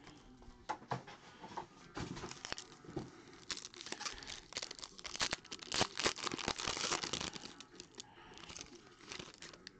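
A foil trading-card pack being torn open and crinkled by hand: a busy run of sharp crackles and rips, thickest in the middle and thinning out near the end.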